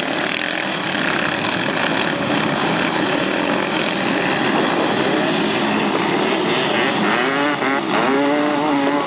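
A pack of racing quad bikes and motocross bikes revving hard together as they climb a sand dune: a dense, continuous engine noise. From about halfway through, several engines rise and fall in pitch as the riders work their throttles.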